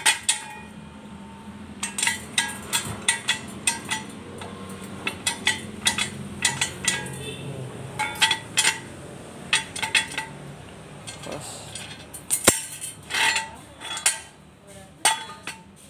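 Steel ratchet post of a Tekiro 3-ton double-locking jack stand being raised and lowered by hand, its notches clicking past the locking pawl in irregular clusters of metal clanks and clinks. One sharp knock stands out about three-quarters of the way through.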